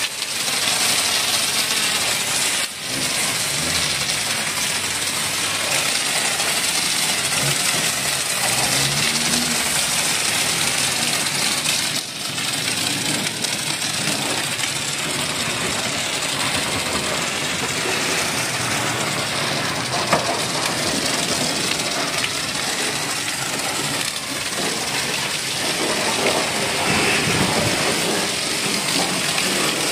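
Car-wash foam lance spraying snow foam onto a car's bodywork: a steady hissing spray over the running pressure-washer pump, broken by two short pauses about three and twelve seconds in.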